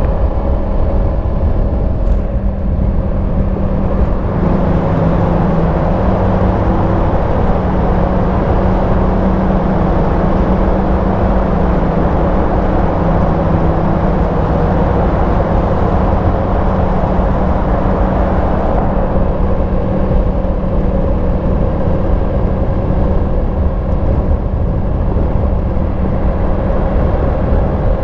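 Yamaha MT-10 SP's crossplane inline-four engine running through its stock exhaust at a steady, even pitch while riding, under a steady rush of wind and road noise. The wind rush grows louder about four seconds in and eases off late in the stretch.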